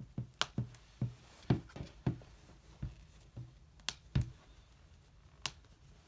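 Snaps on a Mother-ease one-size fitted cloth diaper being pressed shut by hand. About a dozen sharp, irregular clicks, with a duller thud about four seconds in.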